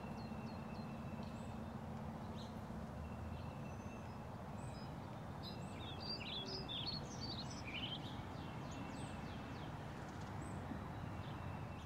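Several wild birds singing and chirping: short high whistled notes and chirps, with a run of quick notes around the middle, over a steady low outdoor background noise.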